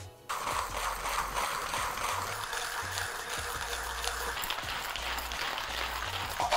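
Manual coffee grinder being cranked by hand, its conical burrs crushing coffee beans at a fine espresso setting: a steady, dense crackling grind that starts suddenly about a third of a second in.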